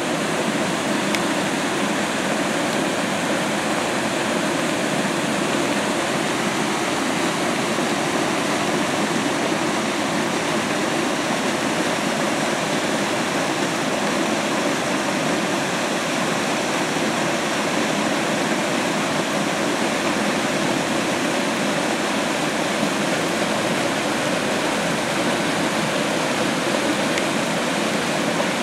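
Rain-swollen creek water rushing and cascading through the rock pools, a steady, even rush.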